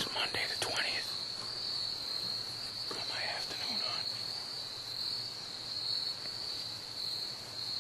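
Steady high-pitched buzz of insects calling in the woods, with faint rustling of movement near the start and again around three seconds in.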